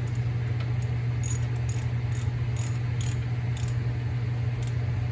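A ratchet wrench clicks in short, repeated strokes, about two a second, as the shroud's fasteners are run in and snugged up, over a steady low hum.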